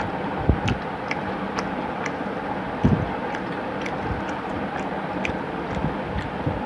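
Eating by hand: small irregular wet clicks from chewing and fingers squishing rice and curry on a steel plate, with a couple of soft thumps, over a steady background hum.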